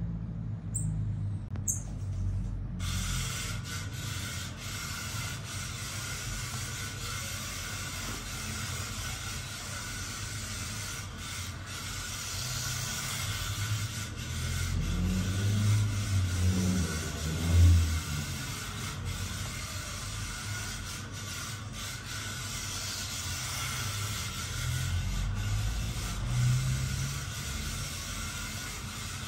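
A 1/28-scale RC drift car's small electric motor and tyres sliding on a printed track mat: a low running hum that rises and falls as the car drifts, swelling to a brief peak about 17 seconds in, over a steady hiss.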